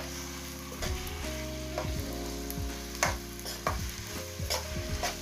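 Two big onions frying in hot oil with garlic and ginger paste, sizzling steadily while being stirred, the utensil knocking and scraping against the pan about half a dozen times.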